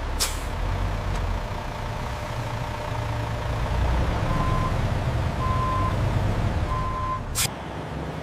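Truck engine running with a low rumble while its reversing alarm beeps three times, about a second apart. A short sharp sound comes just after the start and another near the end.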